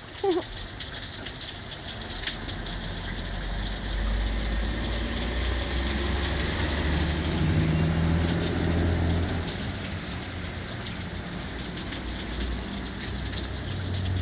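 Heavy rain pouring steadily, with a low rumble building underneath from a few seconds in.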